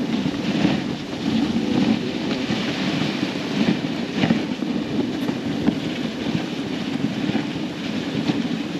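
Dog sled running over a packed-snow trail: a steady scraping rumble from the runners, with small scattered knocks.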